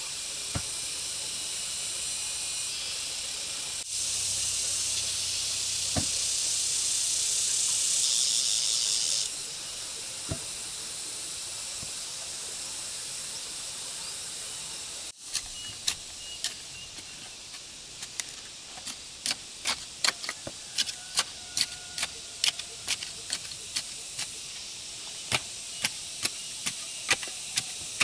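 A steady high hiss for about the first half, then, after an abrupt cut, a run of sharp, irregular knocks or taps, roughly two a second.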